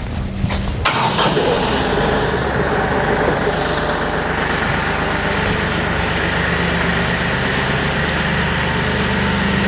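Kioti DK-series tractor's diesel engine starting about a second in, after a few clicks, then running steadily.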